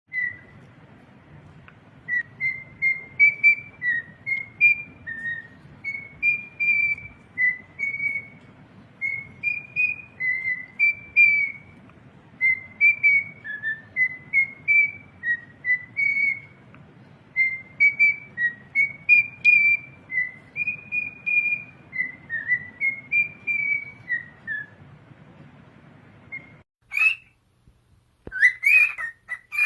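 Male cockatiel whistling a tune: phrase after phrase of clear, gliding whistled notes. Near the end it switches to sharper chirping calls.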